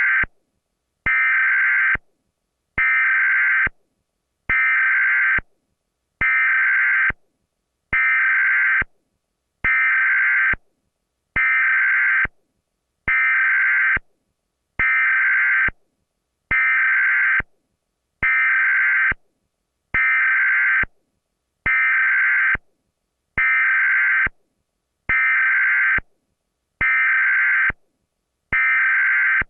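Emergency Alert System SAME header data bursts, a buzzy digital warble, each burst about a second long and repeating roughly every 1.75 seconds with silent gaps between.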